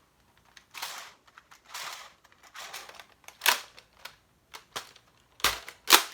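Irregular plastic clicks and rattles of Rival foam balls being pushed one by one into the loading port of an Adventure Force XL10 pump-action foam blaster. The loudest clicks come near the end.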